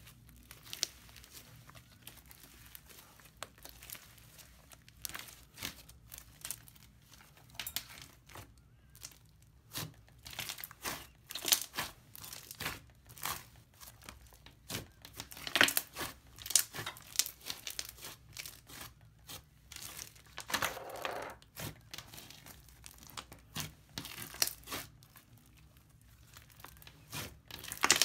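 Hands kneading, stretching and pressing a pink 'slime smoothie' (several slimes mixed together) studded with small foam beads: irregular sticky crackles and pops as the slime is folded and pulled apart.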